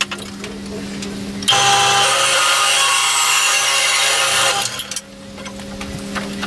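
Bandsaw running with a steady hum. A little over a second in, the blade cuts into 16 mm round steel tube, giving a loud hissing screech with ringing tones for about three seconds before it drops back to the motor hum.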